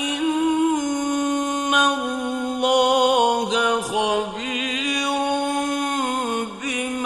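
A man's voice reciting the Quran in the slow, melodic mujawwad style: long held notes that waver and turn in pitch, drawn out almost without a break.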